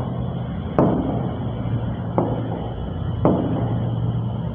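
Three sharp taps on an interactive whiteboard's touch screen, about a second apart, over a steady low hum.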